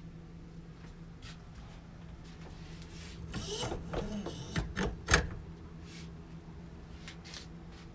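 Stainless pull-down kitchen faucet being handled over a steel sink: the spray head and hose are pulled out and let back, with a few knocks and rattles and a sharp click about five seconds in as the head docks.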